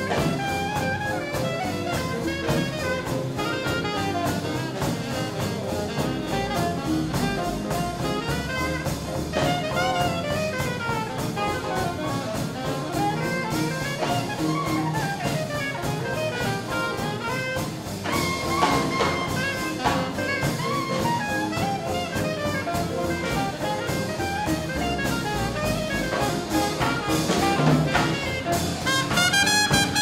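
Live swing band playing an instrumental number: a saxophone out front over drums and brass.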